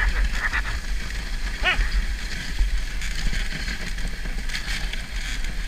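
Dog sled running over packed snow, a steady muffled rumble and rattle as heard through a GoPro's waterproof case, with one short rising squeal about a second and a half in.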